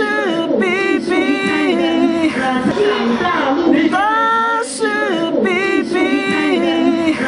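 Unaccompanied singing of a song, with a short melodic phrase repeated.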